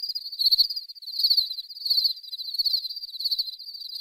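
Crickets chirping: a steady high trill that swells and fades about every three quarters of a second.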